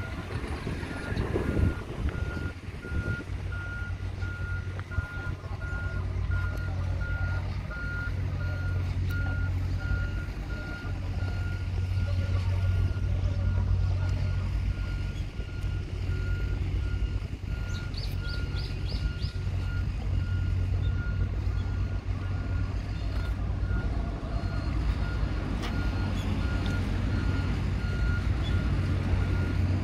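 An electronic warning beeper sounding one steady high note, about three beeps every two seconds, over the low hum of an engine running. A quick run of five high ticks comes about eighteen seconds in.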